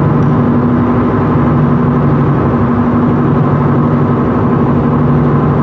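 Steady engine and road drone inside a moving vehicle's cabin, with an even low hum.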